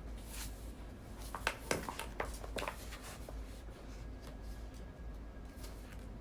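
A quick cluster of small clicks and taps from desk work at a study table, over a low steady hum.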